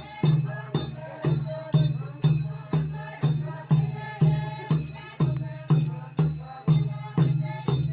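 Traditional dance music: barrel drums beaten in a steady, even beat of about two strokes a second, each stroke carrying a jingling rattle, with a group of voices chanting along.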